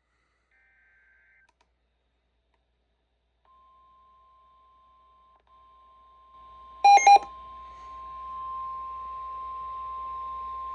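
Midland WR-120 weather radio sounding a NOAA Weather Radio warning alert, heard through the radio's small speaker. It is near silent at first, then a faint steady tone, then a short burst of beeps about seven seconds in. After the beeps comes the long, steady, single-pitch warning alarm tone, which swells a little and holds over a faint hum. The alarm tone signals that a warning broadcast is about to follow.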